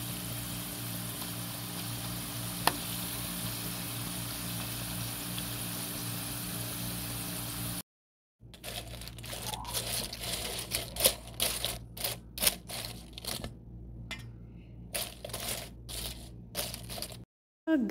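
Thin potato slices deep-frying in hot oil: a steady sizzle over a low hum, with one sharp click. About eight seconds in, the sound cuts to fried potato crisps rattling and scraping irregularly in a perforated metal colander as they are tossed.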